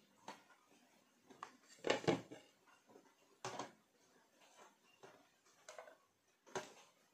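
A few short knocks and clatters of a rice cooker and a plastic plate being handled as rice is scooped out, the loudest about two seconds in.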